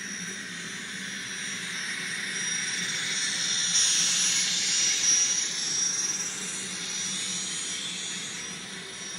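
Sound decoder of a ScaleTrains N scale Union Pacific GTEL gas turbine locomotive playing its turbine sound: a jet-like whine and hiss that swells to its loudest about four to five seconds in and then eases, over a steady low hum.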